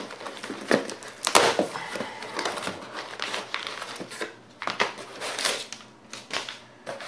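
Cardboard box being opened by hand and newspaper packing handled: a run of irregular paper crinkles, rustles and cardboard scrapes, with a louder crackle about a second and a half in.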